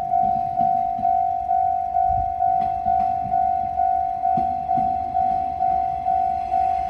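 Japanese railway level crossing alarm ringing: one electronic bell-like tone struck about twice a second, each strike fading before the next, the signal that the crossing is closed for a train.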